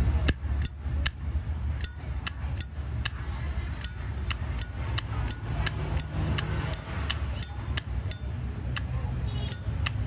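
Zippo lighter's hinged metal lid being flicked open and snapped shut over and over: sharp metallic clicks with a brief ring, about two to three a second.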